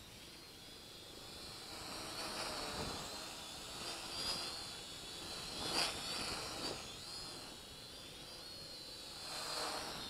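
Holy Stone HS110D quadcopter's propellers whining in flight, the pitch wavering up and down as the motors change speed to hold the drone against strong wind. The sound swells louder several times, most strongly about six seconds in, as the drone comes close overhead.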